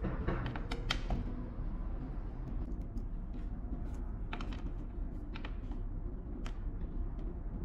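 Scattered light plastic clicks and knocks as a handheld electronic ignition unit and its charging cable are handled on a workbench, several close together at first and then single ones about a second apart, over a steady low background rumble.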